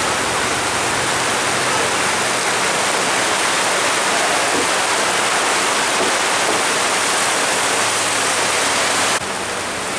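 Heavy rain falling, a loud steady hiss that drops a little, suddenly, near the end.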